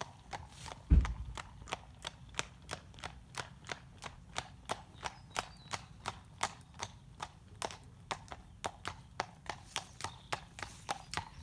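Cob horse's hooves clip-clopping on a tarmac road at a trot, an even beat of about three strikes a second. A loud low thump comes about a second in.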